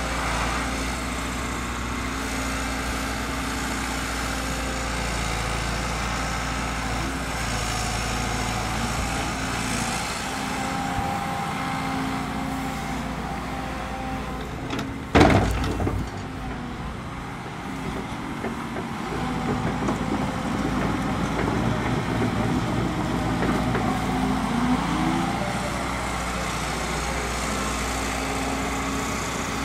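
Liebherr 924 Litronic excavator's diesel engine running steadily as the machine works, with one loud knock about halfway through. The engine gets a little louder and busier in the second half.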